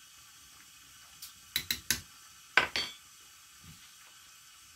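A metal spoon clinking against a stainless-steel pot of cold okroshka soup as it is stirred, a handful of sharp clinks about one and a half to three seconds in, the last one ringing briefly.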